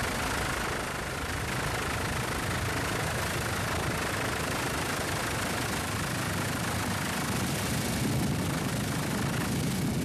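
Helicopter rotor and engine noise, steady and loud, heard from aboard the helicopter.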